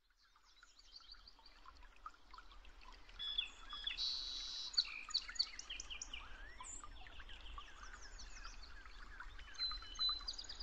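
A chorus of small birds chirping and calling in many short, quick notes, fading in from silence during the first seconds.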